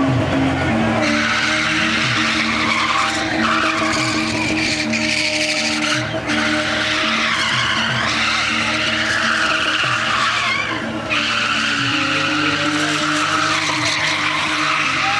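BMW E30 3 Series spinning donuts: the rear tyres screech continuously while the engine is held at high revs. The screech drops out briefly twice, about six and eleven seconds in.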